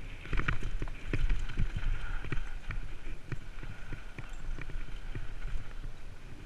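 Downhill mountain bike clattering over a rocky dirt trail: tyres crunching on loose stones, with many sharp knocks and rattles from the bike as it hits bumps at speed.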